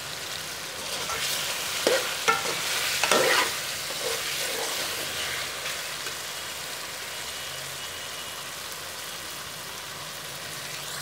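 Chicken pieces frying in oil in a metal karahi with onion and tomato masala, a steady sizzle, at the browning (bhuna) stage. A metal spoon scrapes and knocks against the pan a few times between about two and three and a half seconds in as the mixture is stirred.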